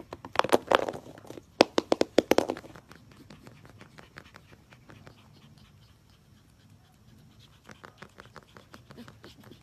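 Siberian husky puppies panting in quick, sharp huffs with some scuffling, loudest in two bursts within the first three seconds, then fainter, with a lighter flurry near the end.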